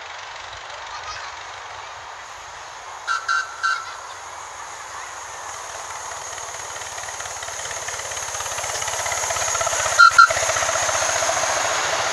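Miniature steam locomotive approaching along the track, its running sound growing louder as it nears. Its whistle sounds three short blasts about three seconds in and two more short blasts near the end.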